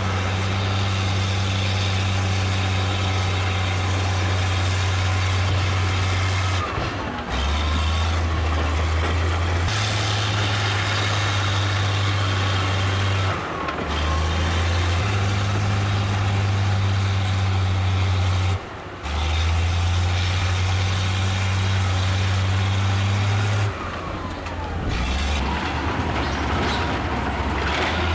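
Bulldozer's diesel engine running hard, a deep steady hum that shifts abruptly between two speeds every few seconds, with brief breaks in between.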